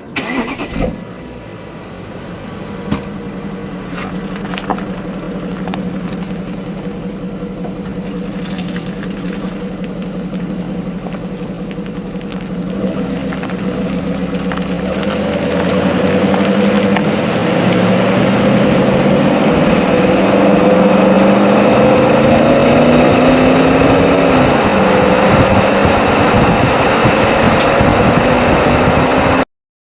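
Volkswagen Touareg 4.2 V8 TDI diesel engine running, a few sharp ticks early on, getting louder about halfway through with its pitch creeping up and dipping briefly near the end.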